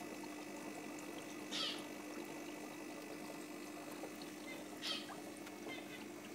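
Steady low hum and faint bubbling of an aquarium air pump and sponge filter, with two short hissing bursts about a second and a half and five seconds in.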